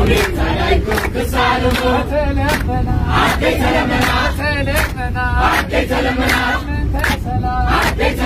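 A bus full of people singing an Eritrean Orthodox Tewahedo hymn of praise together, with hand claps keeping a beat about twice a second. A steady low rumble from the bus runs beneath.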